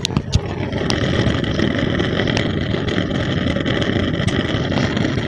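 Lit gas stove burner running with a steady rushing flame noise, with a few sharp clicks in the first second and faint ticks scattered through. This is the noisy, crackling burner fault being diagnosed.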